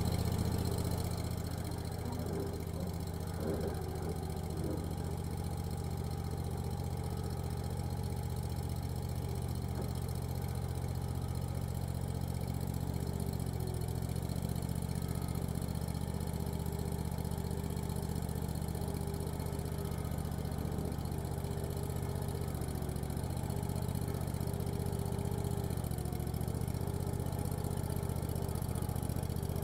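Vermeer CTX50 mini skid steer's engine running at a steady speed, with an even low note and a faint steady whine above it.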